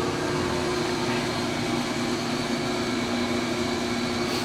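Steady mechanical hum of shop background noise, with two constant low tones over an even hiss.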